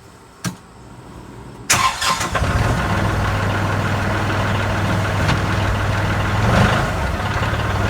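Kubota Grand L3560 tractor's diesel engine starts up about two seconds in and then runs steadily. There is no hydraulic hum: with the BH92 backhoe reconnected, the tractor's hydraulics are back to normal.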